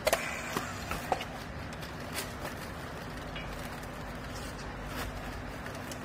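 Battery-powered handheld plastic-strapping tool clicking and knocking as it is clamped onto yellow polypropylene strap around a compressed clothes bale, over a steady machine hum. A cluster of sharp clicks comes at the start, a few more within the first second or so, and single clicks about two and five seconds in.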